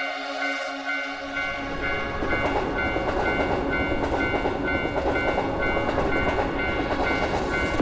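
Railroad crossing alarm ringing in a steady repeating two-tone pattern while a train passes, its rushing, rumbling noise building up about a second and a half in.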